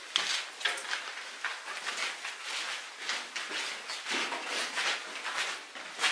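Footsteps walking at an easy pace, about two steps a second.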